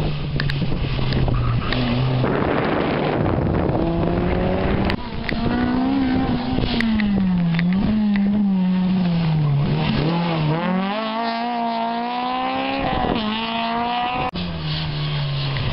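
Rally car engine revving hard under full acceleration, its pitch climbing and then dropping at each gear change, several times over.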